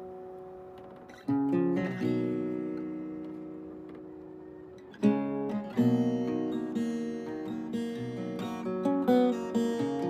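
Background music on acoustic guitar: a couple of strummed chords left to ring out, then a quicker picked pattern from about halfway.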